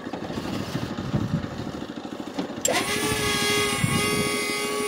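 Small engine of a tracked crawler carrier idling roughly, then revved up about two and a half seconds in, settling into a steady high whine.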